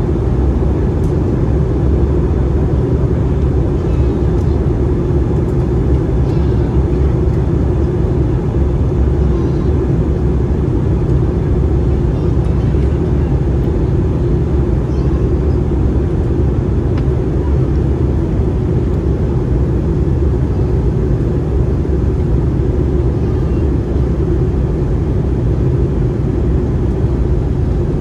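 Cabin noise of an Airbus A320-214 in flight: a steady low roar of airflow and engines, even throughout.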